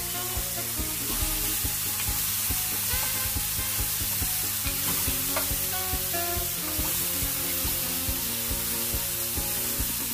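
Sliced button mushrooms sizzling in a hot frying pan while a wooden spoon stirs and scrapes them around, with steady frying hiss and small knocks of the spoon against the pan. Background music plays along.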